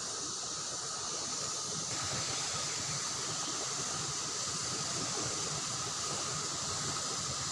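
Fast-flowing river current rushing steadily, with a faint steady high tone running through it.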